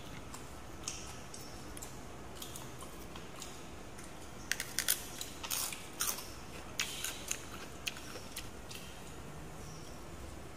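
Close-up eating sounds: a cluster of short, crisp crunches and mouth clicks about halfway through, a few more a little later, over a quiet room background.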